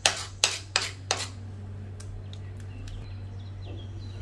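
Metal spoon clicking and scraping against a plate as melted chocolate and margarine is stirred quickly, about three strokes a second, stopping after about a second. Faint bird chirps follow near the end.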